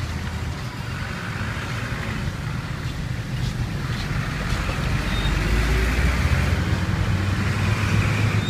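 Street traffic rumbling steadily, swelling somewhat louder past the middle as a vehicle goes by.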